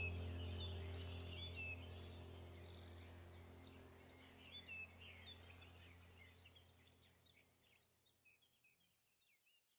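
Background soundtrack of a low, steady drone with birdsong chirping over it, fading out to silence over the last few seconds.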